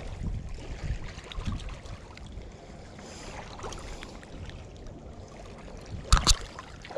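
Wind rumbling on the microphone and small waves lapping at a rocky lakeshore, with faint handling clicks. A little after six seconds in, two sharp knocks in quick succession.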